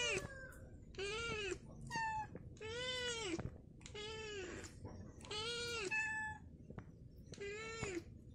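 Cat meowing over and over: about six drawn-out meows roughly a second apart, each rising then falling in pitch, with a couple of short chirps in between.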